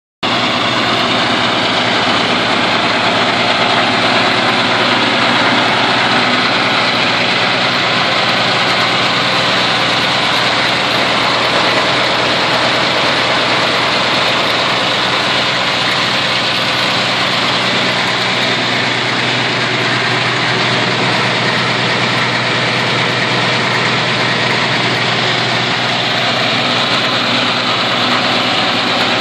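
Caterpillar six-cylinder diesel engine of a towable 75 kW generator set running steadily at a constant speed.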